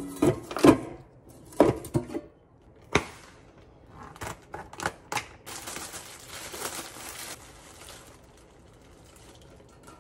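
Sharp clacks and knocks of a stainless steel food container and its clip-on lid being handled and opened on a stone counter, several in the first three seconds. A few lighter ticks follow, then a couple of seconds of thin plastic crinkling from disposable plastic gloves and the kimchi bag being handled.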